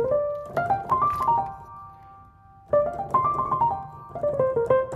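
Background piano music: two short melodic phrases of quick notes, with a brief pause between them about two seconds in.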